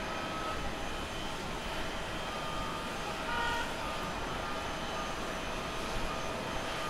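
Rolls-Royce Trent 1000 engines of a Boeing 787-9 airliner on final approach at low landing thrust: a steady jet rumble with faint whine tones running through it.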